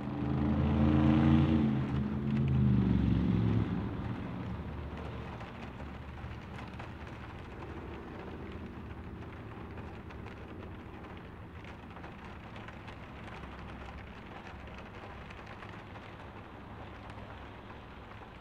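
Steady rain falling, heard from inside a truck with rain-spattered windows. In the first few seconds a louder low rumble with several pitched tones swells up and fades away by about four seconds in.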